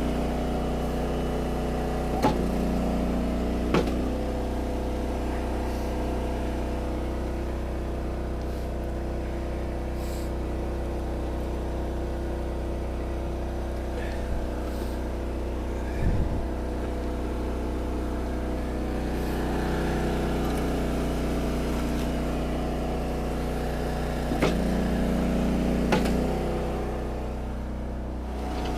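Gas engine of an Eastonmade 22-28 hydraulic log splitter running steadily, bogging into a heavier note twice as the ram drives a round through the wedge. A few sharp cracks and knocks come as the wood splits and pieces fall.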